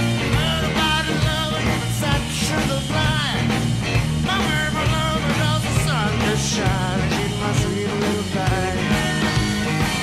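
Rock music played as a soundtrack.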